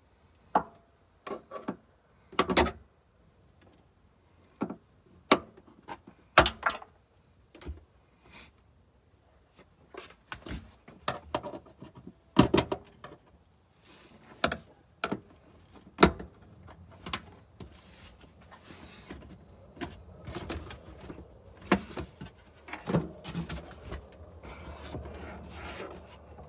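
Plastic pop clips being pried out of a car's rear trunk trim cover with a trim tool, and the cover handled: irregular sharp plastic clicks and knocks, with rustling near the end.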